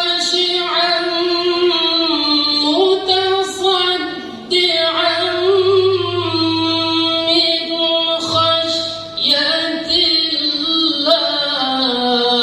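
A man reciting the Quran in the melodic tilawah style, holding long ornamented vowels that slide between pitches, with a few short breaks for breath.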